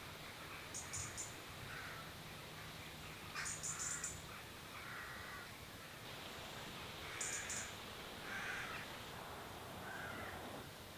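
Birds calling: repeated harsh, crow-like caws every second or so, with three short bursts of quick, very high chirps.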